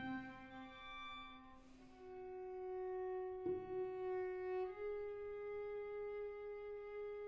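String quartet playing slow, long-held bowed notes. The sound steps up to a new pitch about two seconds in, has a sharp bowed attack around three and a half seconds, and steps up again near five seconds.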